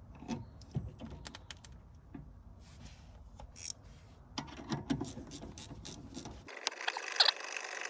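Scattered metallic clicks, taps and clinks of brake caliper parts being handled as a caliper slide pin is greased and refitted. About a second and a half before the end the sound changes abruptly to a denser run of clicks with one sharp click.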